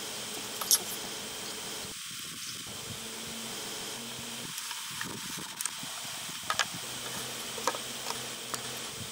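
Steady outdoor hiss of insects, with a few light clicks and knocks as hardwood puzzle pieces and hand tools are handled on a wooden bench; the sharpest click comes about a second in.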